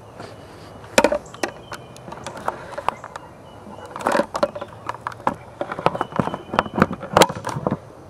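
Footsteps as someone walks, with irregular sharp clicks and knocks. The loudest come about a second in, around four seconds and around seven seconds.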